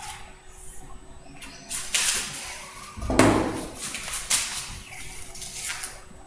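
Felt-tip whiteboard marker scraping across a whiteboard in several strokes as lines are ruled on the board. A louder thump comes about three seconds in.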